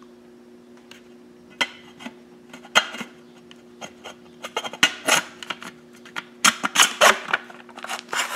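Plastic clicks and scrapes as a hard-drive enclosure's perforated plastic cover is handled and fitted against its metal casing. The clicks are scattered at first and come thick and fast in the second half, over a faint steady hum.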